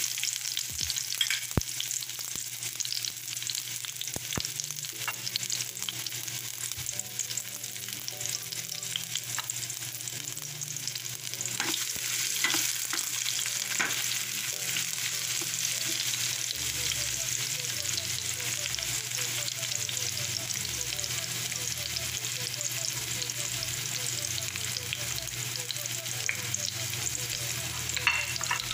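Chopped garlic and sliced red onion sizzling in hot oil in a stainless steel frying pan, with a spatula scraping and knocking against the pan as it is stirred. The sizzle grows a little louder about halfway through.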